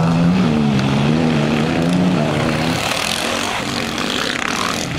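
Racing quad bike engine running hard as it passes, its note wavering up and down in pitch. From about three seconds in it gives way to a rougher, noisier sound.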